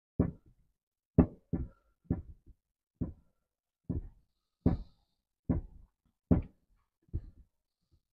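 About ten sharp clicks, one every half second to second, from a T-handle tap wrench as it turns a thread-insert driver back out of an aluminum cylinder head's exhaust-manifold bolt hole.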